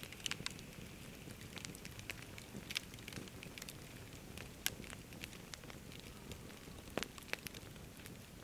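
Wood campfire crackling, with irregular sharp pops scattered throughout; the loudest pops come about halfway through and about seven seconds in.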